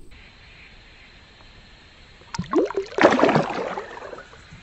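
Splash and slosh of water as a smallmouth bass is released back into a shallow creek: a quick swish about two and a half seconds in, then a louder splash that fades over about a second.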